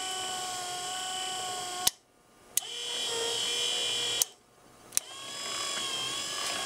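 Small DC windshield-wiper motor driving a metal lathe's lead screw, running with a quiet steady whine. Its toggle switch clicks four times, flipping it through forward, stop and reverse: the motor cuts out, starts again and rises to speed, cuts out, and starts once more.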